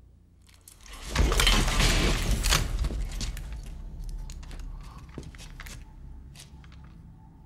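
Film sound effects: a loud rushing swell with a deep rumble for about two seconds, followed by scattered sharp metallic clicks as a bulky sci-fi gun is handled and raised.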